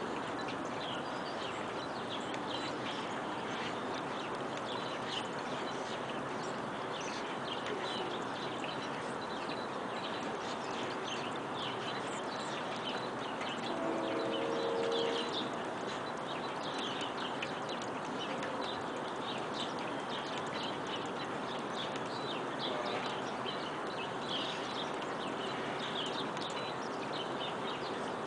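Steady outdoor background noise with many short, high chirps or ticks scattered throughout, and a brief pitched sound about halfway through.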